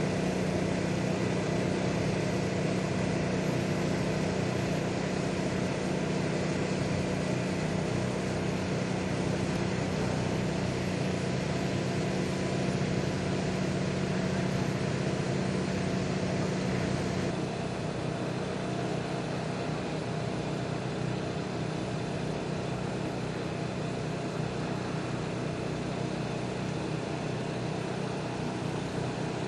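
Light-sport aircraft engine and propeller running steadily with a constant pitch, as a Quad City Challenger II taxis after touchdown. About seventeen seconds in, the drone drops a little in level and changes tone.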